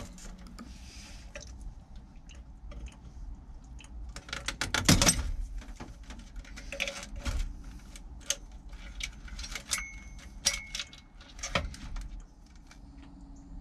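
Hand tools clicking and clinking against metal as the old zip ties and fasteners holding a marine generator's control box are worked free. The clicks come irregularly, with a louder clatter about five seconds in.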